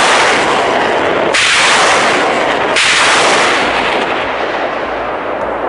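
BM-27 Uragan multiple rocket launcher firing a volley: rockets leave the tubes one after another with a loud rushing roar. Fresh launch blasts come after about a second and a half and again near three seconds, then the roar slowly fades as the rockets fly off.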